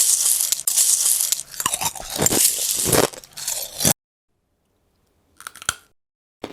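Loud crunching and chewing, dense for about four seconds before it cuts off suddenly, then one short crunch about a second and a half later.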